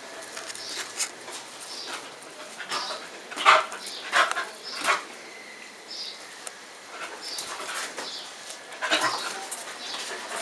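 Terrier puppies giving short barks: three in quick succession about a third of the way in, and another near the end.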